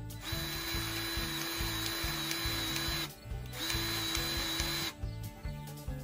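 A small power tool's motor runs in two bursts, one about three seconds long and then a shorter one of about a second and a half, each starting and stopping suddenly with a steady whine. Background music with a steady beat plays under it.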